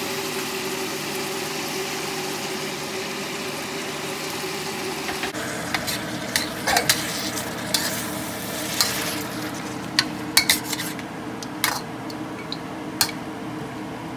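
Food sizzling in a steel wok as it is stir-fried, over a steady hum. From about six seconds in, a metal spatula scrapes and clanks against the wok several times.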